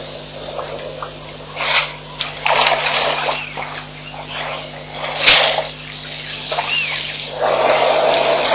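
African elephant drinking at a waterhole: several bursts of splashing and sloshing water as its trunk works in the water and lifts water to its mouth. A low steady hum runs underneath.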